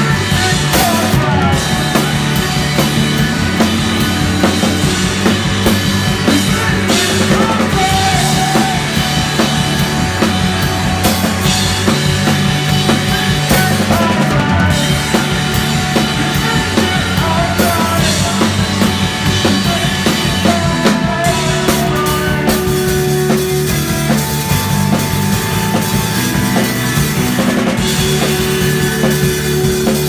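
Rock band playing loud at full tilt, heard from right beside the drum kit: drums and crashing cymbals up front, electric guitars and bass behind.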